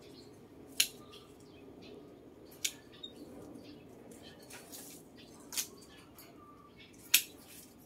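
Pruning shears snipping twigs off a golden bamboo bonsai: four sharp snips at uneven intervals of one to three seconds, the last the loudest, over a steady low background hum.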